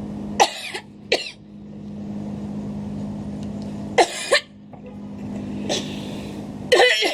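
A person coughing several times in short bursts over a steady low hum.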